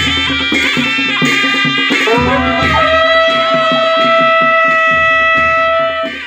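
Nepali panche baja wedding band playing: a wind instrument carries the melody over a steady drum rhythm, holding one long note from about a third of the way in until just before the end, where it breaks off.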